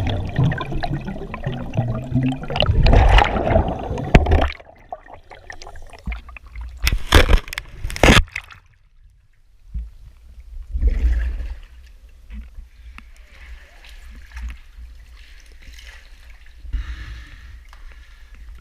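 Water gurgling and splashing around a diver in a flooded cave passage, loud for the first four seconds and then cutting off abruptly. This is followed by two or three sharp knocks about seven to eight seconds in and then quieter, intermittent water noise.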